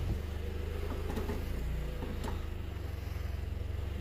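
A vehicle engine idling: a low, steady hum with a fast, even pulse.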